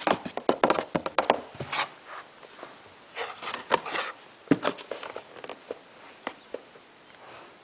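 A cat scratching and clawing at the walls of the box she is trapped in while trying to get out: an irregular run of scratches and knocks, busiest in the first two seconds and again around four seconds in, thinning out near the end.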